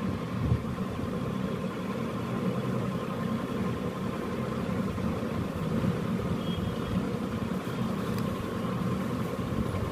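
A steady low mechanical hum, like a motor running, with a faint thin tone above it.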